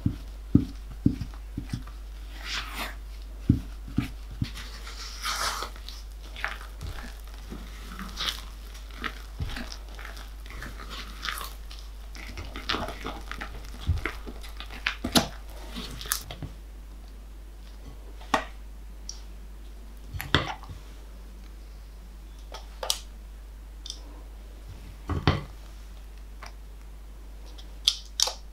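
Silicone spatula folding flour into cake batter in a glass mixing bowl: irregular soft scrapes and swishes with occasional sharper taps of the spatula against the glass, then batter being scooped into a metal cake tin.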